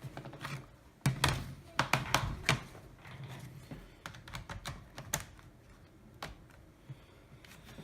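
Plastic clicks, taps and knocks from handling a Toshiba Satellite laptop as its battery is being fitted: a cluster of sharp knocks about a second in, then scattered single clicks.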